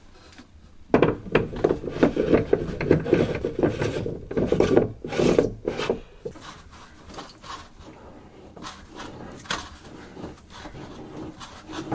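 Plastic water filter housing being screwed by hand back onto its head, the plastic threads scraping in quick twists for about five seconds. Then quieter, with a few light clicks.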